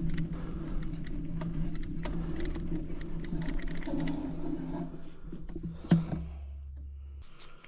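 Mountain bike rolling down a rocky dirt trail: tyres crunching over dirt and loose stones, with rapid clicking and rattling from the bike. It slows and goes quieter partway through, with one sharp knock about six seconds in.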